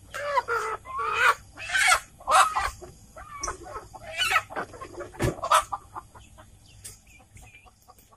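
Native free-range chickens squawking loudly as a hen is let go, then scattered clucking that fades. A sharp thump about five seconds in.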